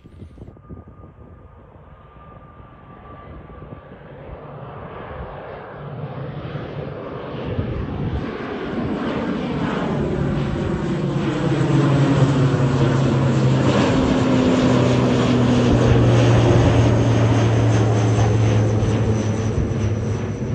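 Twin-turboprop airliner on final approach, growing louder as it nears and passes low overhead, with a deep, steady propeller drone. A thin high turbine whine joins in the last few seconds.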